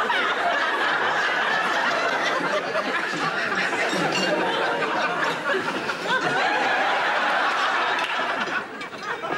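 Studio audience laughing, a long sustained laugh from many people that dies away near the end.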